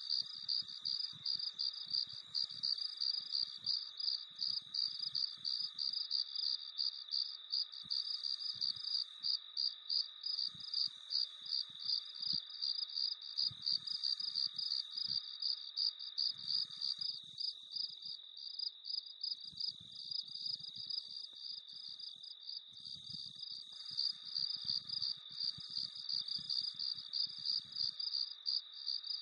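Crickets chirping: a steady, high-pitched train of rapid, evenly repeated chirps.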